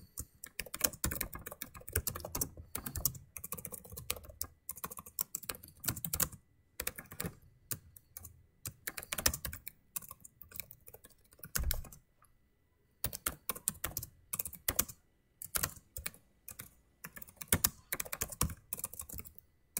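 Typing on a computer keyboard: quick runs of key clicks, broken by a short pause a little past the middle.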